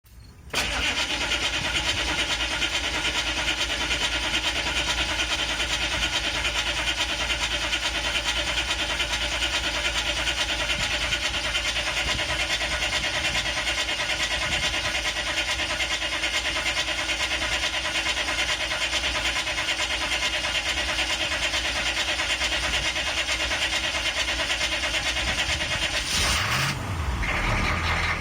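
CUCV military truck's 6.2-litre diesel V8 cranking on the starter for a long time, a hard start, before catching about 26 seconds in, revving briefly and settling into idle.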